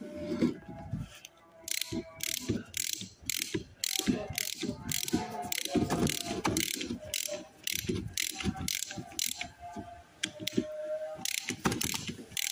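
Hand ratchet clicking in quick, irregular runs as it turns bolts on a power steering box.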